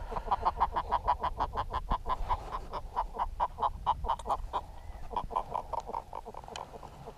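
A sea catfish (badukang) croaking while held in the hand: a long, even run of short grunting pulses, about five a second, which these catfish give when handled out of the water.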